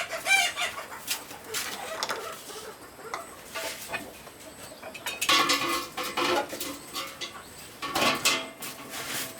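Pots and metal utensils clattering and knocking as they are handled, with a few chicken clucks among them.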